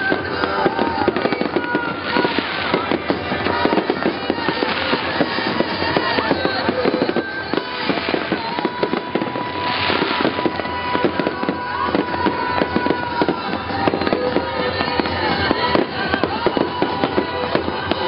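Fireworks display: aerial shells bursting in a rapid, continuous barrage of bangs and crackles.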